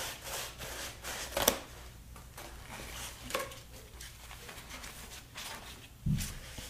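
Light handling sounds as a shop towel is laid and tucked around a lawn-mower engine's exposed cylinder: cloth rustling with scattered small clicks, a sharp click about a second and a half in and a soft thump near the end.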